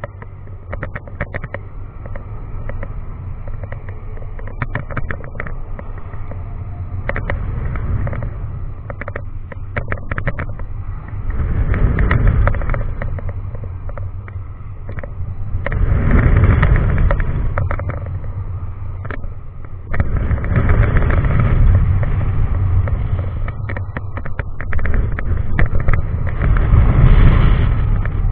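Wind rushing and buffeting over a ride-mounted camera on a swinging giant frisbee pendulum ride, over a low rumble. It swells with each swing, about every four to five seconds, growing louder as the swings get bigger, with crackling clicks from the buffeting.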